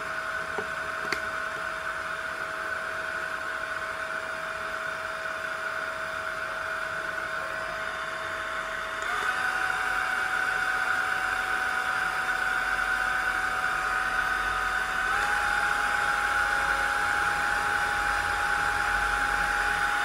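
Small rechargeable bladeless desk fan running: a steady motor whine over a rush of air. It steps up in pitch and loudness twice, about nine and fifteen seconds in, as the fan goes up through its speed settings from the first.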